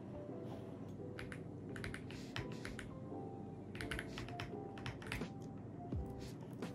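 Typing on an AULA F75 mechanical keyboard: quick, irregular clusters of key clicks. Soft background music with held notes plays underneath.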